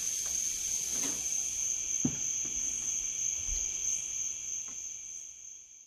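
Crickets chirping in a steady high trill, with a couple of soft knocks about one and two seconds in; the sound fades out near the end.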